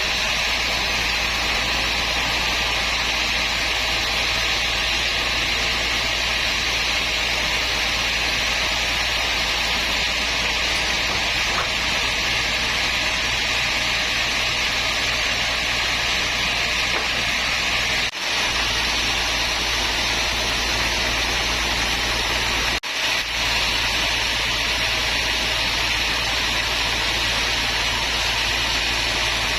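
Steady, loud running noise of woodworking machinery, with two brief dropouts about 18 and 23 seconds in.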